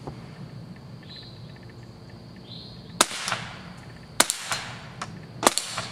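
A Winchester Model 290 semi-automatic .22 rifle firing 40-grain Quiet-22 long rifle rounds, three sharp shots about three, four and five and a half seconds in. The low-powered rounds cycle the action on their own.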